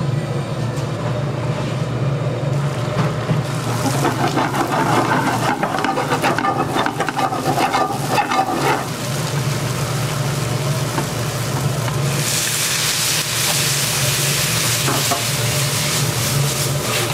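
Food frying in oil in a pan over a gas burner, sizzling and crackling, the sizzle turning to a loud steady hiss about twelve seconds in as the pan flares. A steady low hum runs underneath.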